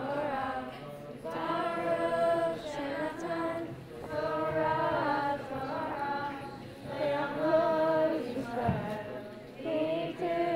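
A congregation of schoolchildren singing a Hebrew prayer together, in phrases of a second or two with short breaks between, as the Torah scroll is brought out of the ark.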